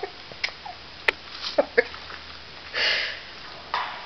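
A person's short, breathy sniff or breath about three seconds in and another just before the end, with a few small clicks and soft mouth or handling sounds before it.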